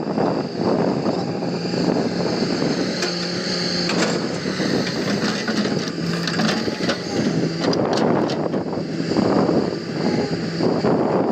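Hitachi hydraulic excavator at work: its engine runs with a steady hum under rough, irregular noise from the machine working, with occasional sharp knocks.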